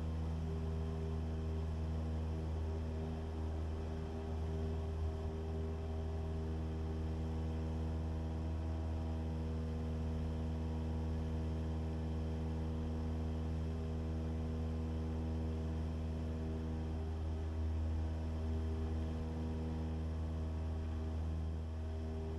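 Cessna 172's four-cylinder piston engine and propeller at climb power just after takeoff, a steady, even drone.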